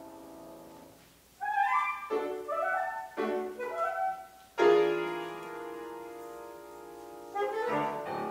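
Soprano saxophone and grand piano playing the closing bars of a classical piece: a chord fading out, a brief pause, quick rising runs, then a loud chord about halfway through that slowly fades, and a short final phrase near the end.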